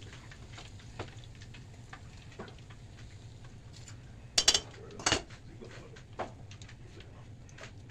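Fish frying in a pot of hot oil, a steady faint crackle of small pops, as the fillet is lifted out with metal tongs. About halfway through the tongs clank loudly on metal twice, with a lighter clink a second later.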